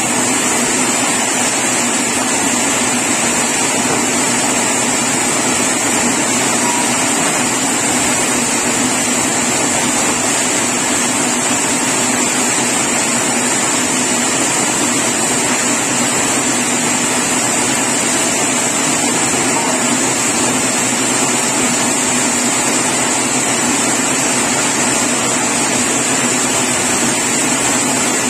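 Sawmill saw running steadily: a constant, unbroken machine noise with a steady high whine over it and no pauses or knocks.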